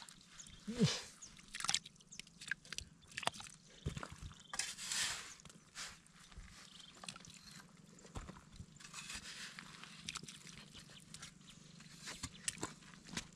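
Hands sloshing and squelching in a small muddy water hole around a trapped fish, with irregular wet splashes and the crumble and thump of clods of mud.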